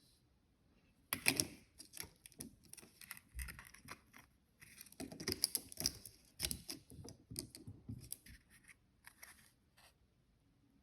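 Irregular run of sharp clicks, taps and scrapes from small objects being handled, starting about a second in and thinning out toward the end.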